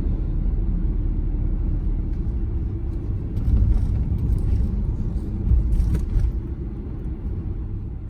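A steady low rumble, with a few faint clicks and knocks between about three and six seconds in.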